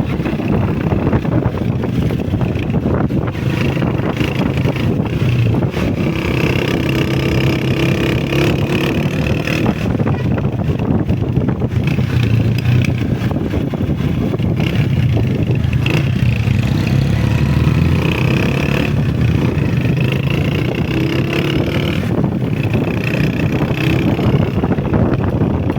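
Honda CG125's single-cylinder four-stroke engine running under way, its pitch rising and falling with the throttle, over a steady rumble of wind and road.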